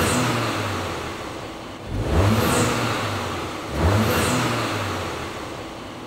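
Audi car engine revved three times, about two seconds apart, each rev climbing quickly in pitch and then dying away.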